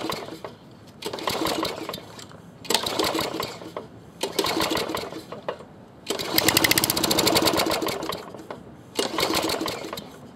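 Tecumseh small engine on a push lawn mower being pull-started again and again: about six separate bursts of cranking, each roughly a second long. About six seconds in, the engine catches and runs for about two seconds, then dies.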